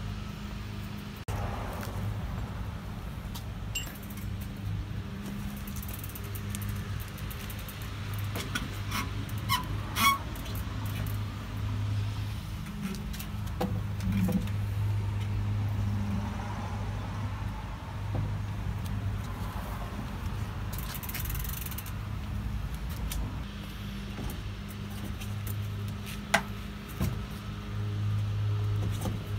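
Light rattling and a few sharp clicks as mountain bikes are handled and lifted into a wooden rack in the back of a cargo van, over a steady low hum.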